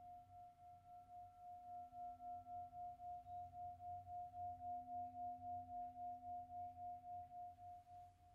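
A struck metal bell ringing out after the chant, holding one steady tone with fainter higher and lower overtones. The tone wobbles evenly about four to five times a second and slowly dies away.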